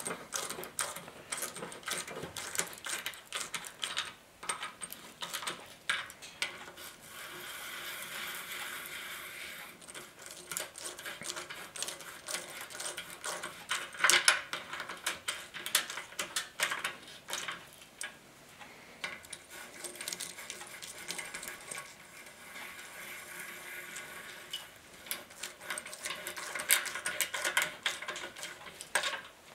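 Hand ratchet wrench clicking as the steering knuckle's bearing cap bolts are run down snug, with metal clinks of tool and bolts. There are two longer stretches of rapid ratcheting, about a third of the way in and again past the middle.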